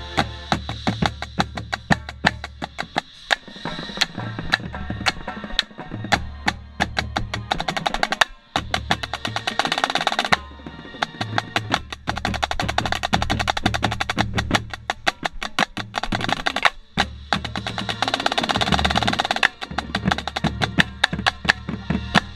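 Marching snare drum with an Evans head played hard with sticks: rapid sticking patterns and rolls, broken by a few short pauses between phrases. Low sustained band notes sound underneath.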